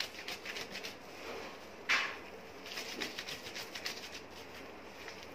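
Wet cotton cloth lathered with liquid hand wash being rubbed and scrubbed together by hand, a rapid scratchy rubbing with one brief louder scrub about two seconds in.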